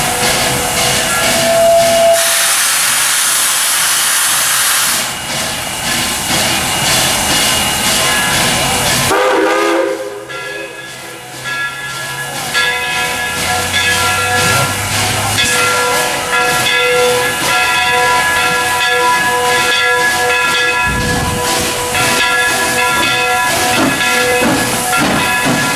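Steam locomotive CNJ 113, a 2-8-0 Consolidation, hissing steam as it eases up to a grade crossing, with a loud burst of hiss about two seconds in that lasts about three seconds.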